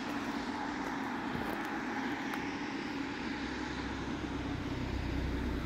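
Steady hum of distant traffic, with a deeper low rumble building from about halfway through.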